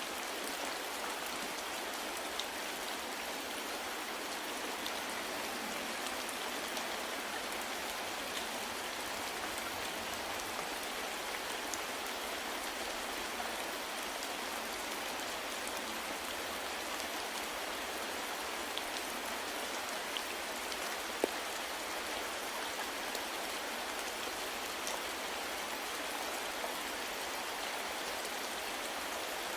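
Steady soft rain falling, an even hiss of many drops with scattered faint drop ticks and one sharper drip about two-thirds of the way through.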